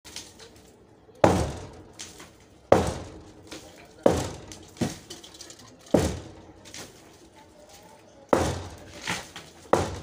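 Hammer blows breaking up a reinforced concrete slab by hand: six heavy strikes a second or two apart, each followed by a lighter knock.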